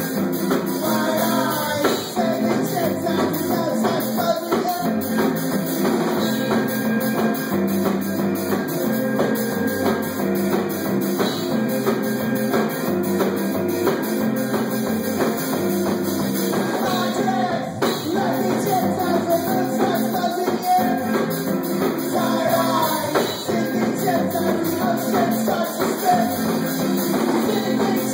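Live rock band playing: electric guitars and a drum kit, with sung vocals over the top.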